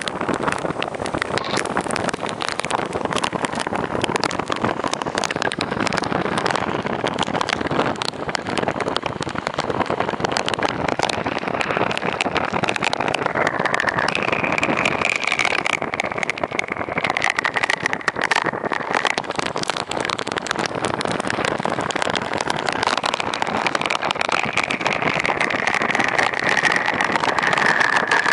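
Hurricane wind and heavy rain, blowing hard and gusting continuously, with the wind buffeting the microphone. A faint high whistling note comes and goes in the second half, falling slightly in pitch.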